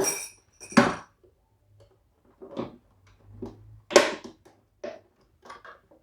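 Scattered knocks and clatters of kitchen equipment being handled, a handful of short separate hits with quiet gaps between them, the loudest about four seconds in.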